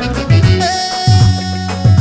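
Live band playing Eritrean guayla dance music: drum kit and bass drive a heavy beat roughly every three-quarters of a second under sustained saxophone and keyboard parts.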